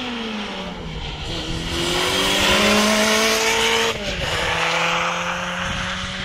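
Classic rally car's engine under hard acceleration: the note dips, then climbs through the revs to its loudest, drops abruptly about four seconds in and climbs steadily again.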